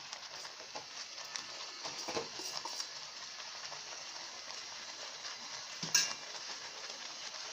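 Oats cooking in a metal pan with a steady soft hiss. A spatula scrapes and taps against the pan a few times in the first three seconds, and there is one sharp clink about six seconds in.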